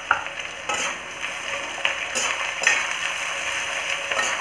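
Sliced onions sizzling steadily in hot mustard oil in a metal kadhai, while a spatula stirs them with several short scrapes and knocks against the pan.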